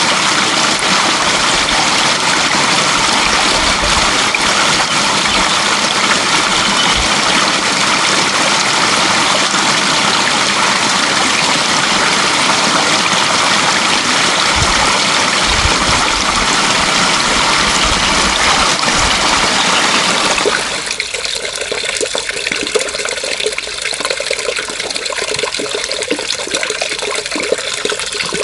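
Running water: a steady, loud rush of flowing water that changes abruptly about 20 seconds in to a quieter, more trickling and splashing flow.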